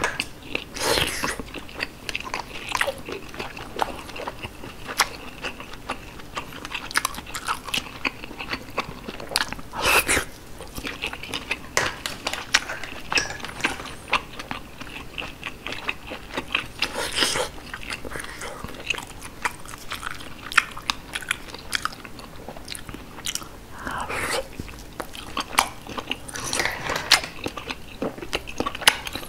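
Close-miked chewing of steamed sea snail (whelk) meat: a run of mouth smacks and small clicks, with a few louder ones now and then.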